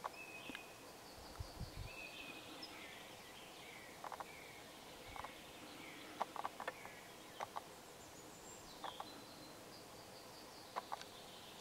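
Faint songbirds singing, thin whistled phrases and short gliding notes, with scattered groups of short sharp clicks and one soft low thump about a second and a half in.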